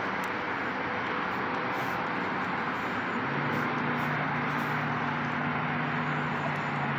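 Steady distant road-traffic noise outdoors, with a low engine hum from a vehicle coming in about halfway through.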